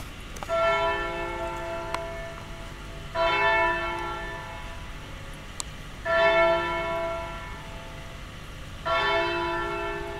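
A bell tolling slowly: four strikes about three seconds apart, each ringing on and dying away.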